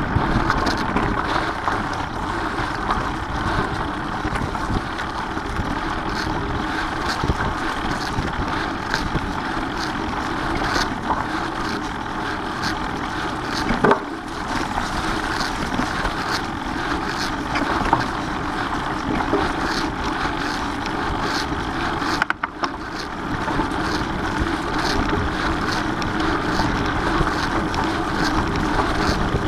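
Mountain bike rolling along a dirt singletrack covered in dry fallen leaves: steady tyre noise through the leaves, with many small clicks and rattles from the bike over bumps, and wind on the microphone. The noise drops off briefly about two-thirds of the way through.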